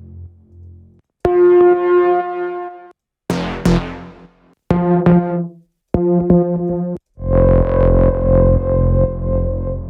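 u-he Repro 5 software synthesizer, a Prophet-5 emulation, playing a bass preset as a lead: five separate sustained notes with short gaps between, the last one held longest. A slightly detuned, atmospheric tone reminiscent of a Minimoog.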